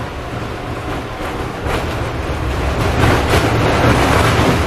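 Tram running along the street, heard from inside the passenger cabin: a steady low rumble of wheels and motors with a few short knocks and rattles. It grows louder about three seconds in.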